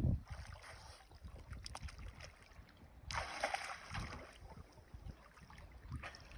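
Water lapping and wind on the microphone, outdoors on open water, with small knocks and a short rush of noise about three seconds in.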